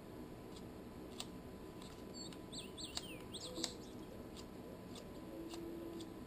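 Faint small clicks and taps of steel tweezers working tiny screws out of an iPhone 4's frame, about one every half second. A short run of faint high chirps comes about halfway through.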